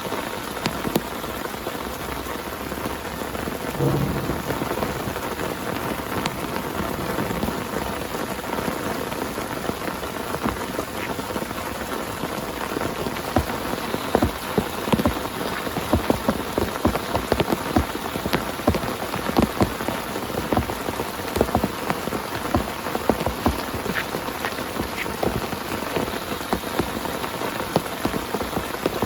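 Heavy rain falling on a tent: a steady hiss of rain with many sharp, louder drops striking, the hits growing denser from about halfway.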